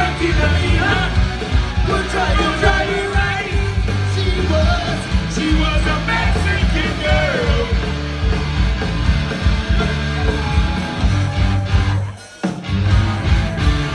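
Punk rock band playing live, a singer over the full band for the first half, then the instruments alone. The music drops out for a moment about twelve seconds in and starts again.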